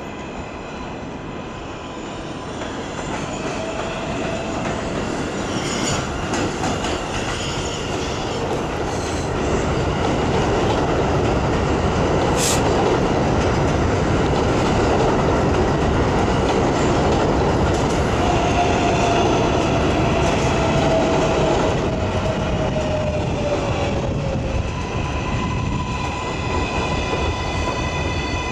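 R188 subway train with Bombardier MITRAC propulsion pulling into the station, its wheels rumbling on the rails and growing louder as the cars pass, with a brief sharp squeal about halfway through. Its motor whine falls in pitch as it brakes to a stop, and a steady high whine is left once it stands.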